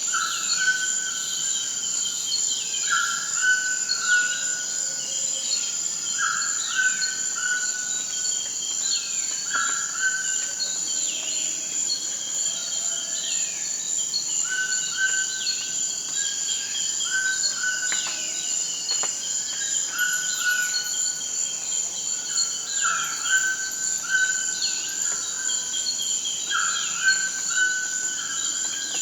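Amazon rainforest ambience: a steady, high-pitched insect drone of crickets or cicadas, with birds calling over it. One call repeats every couple of seconds, and there are many short falling chirps.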